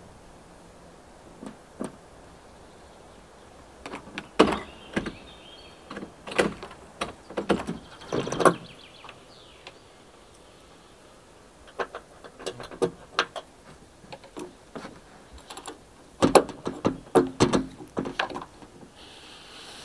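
Clusters of sharp clicks, knocks and rattles as the parallel lift roof of a pickup hardtop camper canopy and its fittings are handled from inside during setup.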